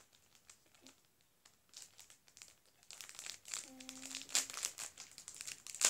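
Crinkling and rustling of craft materials being handled, starting about two seconds in as a scatter of crackles and growing busier toward the end.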